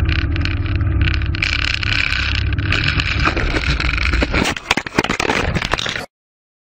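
Light propeller plane's engine and propeller droning loud inside the cockpit, with wind and rattling noise. Just over four seconds in the drone breaks into a run of irregular knocks and crunches as the plane hits the ground, and the sound cuts off suddenly about six seconds in.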